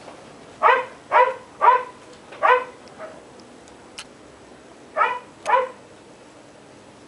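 A dog barking: four quick barks in a row, then two more after a short pause.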